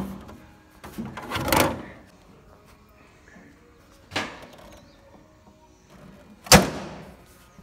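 Handling noises from parts being fitted in the engine and battery compartment of a John Deere 4500 compact tractor. A scraping rustle about a second in, a sharp knock about four seconds in, and a louder single knock a couple of seconds later.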